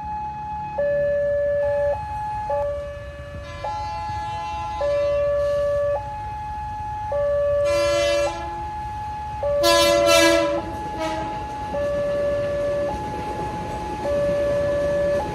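Railway level-crossing warning siren alternating between a high and a low tone about once a second, as a KRL Commuterline electric train approaches and passes. The train sounds its horn twice, briefly about 8 seconds in and louder about 10 seconds in.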